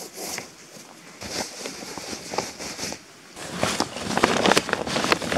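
Faint ticks and scrapes of bootlaces being pulled tight. About three and a half seconds in, a much louder crinkling and rustling of a polyethylene tarp being handled takes over, full of sharp crackles.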